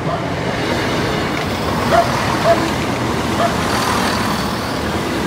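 Class 170 Turbostar diesel multiple unit passing close by, its underfloor diesel engines and wheels on the rails making a loud, steady running noise. A few short high squeaks come about two to three and a half seconds in.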